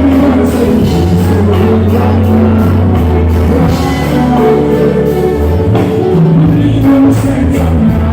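Loud live concert music with a heavy bass line and a steady drum beat, with some singing.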